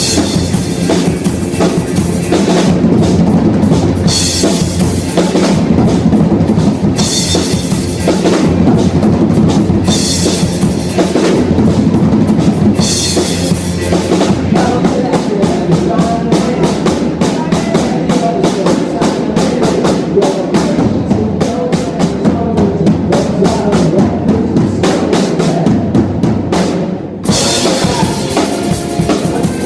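Live rock band playing through a stage PA, the drum kit loudest with steady kick and snare hits. The playing breaks off for a moment near the end, then comes back in.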